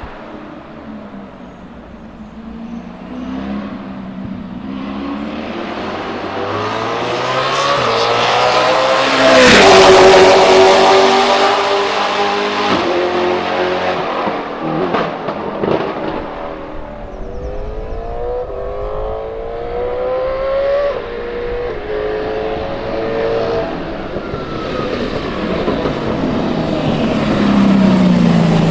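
Lotus Elise GT1's 5.7-litre Corvette V8 race engine at full throttle. It is loudest about a third of the way in, where the pitch falls sharply as the car goes by, then is heard pulling up through the gears, each rising sweep cut by an upshift. Near the end it grows loud again as the car comes close.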